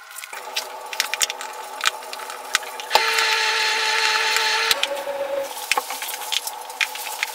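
Small sharp clicks and taps of metal tweezers and little wooden branch slices being set onto a wooden board, over a steady hum. A louder steady hiss runs for about two seconds in the middle.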